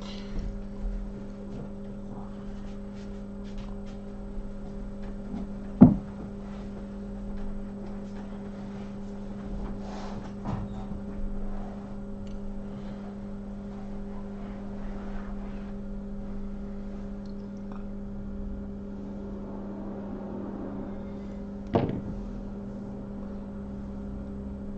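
Steady low electrical hum from powered workbench soldering equipment, broken by two sharp taps, one about six seconds in and a louder one near the end.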